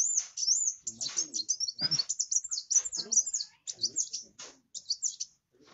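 A kowul sunbird (kolibri wulung) singing in full voice: a dense run of quick, high, twittering chirps and short trills, pausing briefly near the end.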